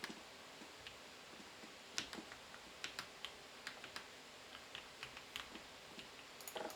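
Typing on a Drop CSTM80 mechanical keyboard with linear Gateron Milky Yellow KS3 switches: irregular, quiet keystroke clacks, few at first and more frequent from about two seconds in.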